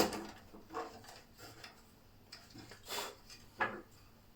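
Scattered clicks and light knocks of hands handling parts inside a desktop PC case while getting at the graphics card, with one sharp click at the start and a few softer ones after.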